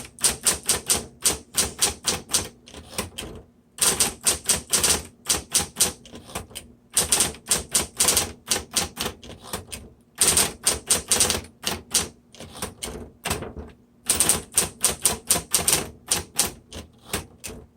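Smith Corona Electra 110 electric typewriter being typed on quickly: runs of rapid key strikes, several a second, broken by short pauses every three or four seconds, over the steady hum of its motor.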